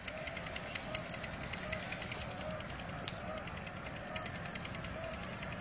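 Steady outdoor background hiss with faint, short chirps repeating about twice a second and scattered faint ticks; the francolin's own loud call is not heard here.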